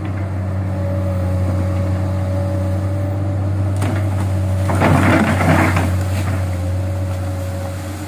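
Komatsu crawler excavator's diesel engine running steadily under hydraulic load, with a faint steady whine. About five seconds in, a loud burst of crackling and snapping as the bucket pushes through brush and branches.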